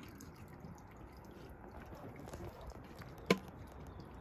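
Faint lake water lapping and dripping against a floating dock, with a single sharp knock a little over three seconds in.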